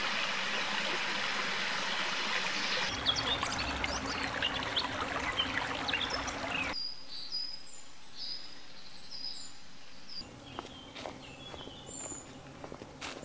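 A forest stream rushing and babbling over stones. About two-thirds of the way through it cuts off sharply to quieter woodland with birds calling in short high whistled notes, and near the end footsteps on a leaf-strewn dirt path.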